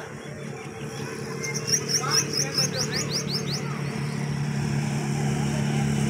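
A vehicle engine running steadily, growing gradually louder, with a quick run of high rising bird chirps in the middle.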